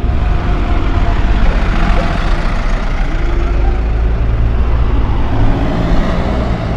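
City buses driving past close by, one after another: a double-decker at the start and a single-decker near the end, with loud engine rumble and road noise.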